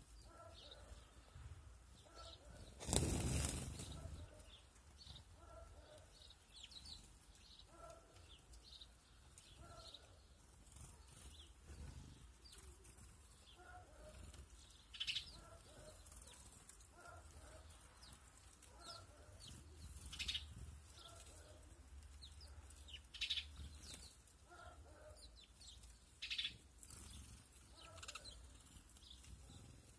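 A brief flurry of small birds' wingbeats about three seconds in as sparrows and tits fly up from a seed feeder. Scattered short chirps and calls from small birds follow, with a few sharper, louder calls.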